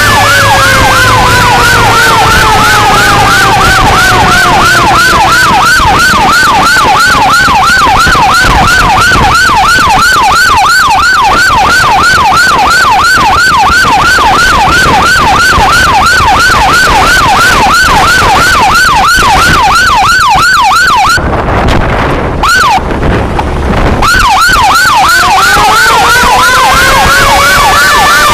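Fire pumper truck's siren: a fast yelp at about three cycles a second, with a wail winding down over it at the start and winding up again near the end. The siren drops out briefly a little after twenty seconds.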